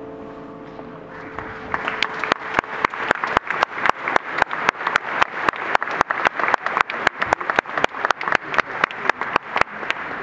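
The last chord of a carillon's bronze bells rings on and fades. About a second in, an audience starts clapping, and the applause quickly grows dense and continues.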